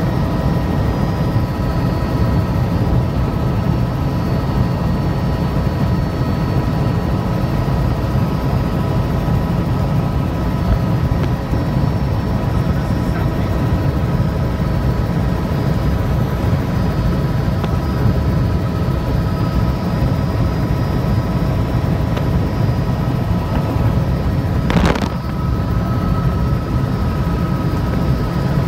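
Helicopter heard from on board: a steady, loud rotor and engine din, heaviest in the low end, with a constant high whine over it. A brief noise cuts across it about 25 seconds in.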